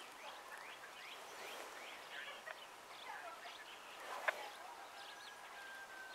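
Birds chirping and calling, many short rising and falling notes, with a sharp click about four seconds in and a long steady whistle near the end.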